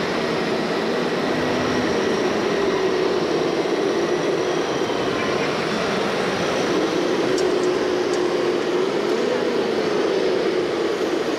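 Motor drone of RC model construction machines at work, wavering slowly up and down in pitch, over a steady din of a busy exhibition hall.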